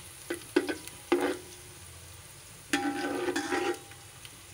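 Sliced onions sizzling as they fry in hot oil, being browned, while a spatula stirs them and scrapes against the pot: a few sharp scrapes in the first second and a longer scraping stretch about three seconds in.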